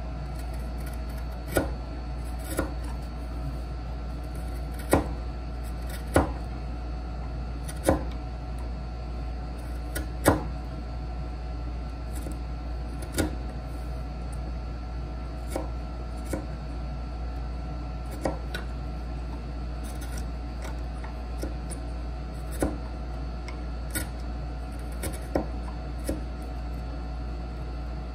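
Irregular sharp taps of a mallet striking a chisel, roughly one every one to three seconds with some hits harder than others, chopping waste out of a hand-cut dovetail joint in wood. A steady low hum runs underneath.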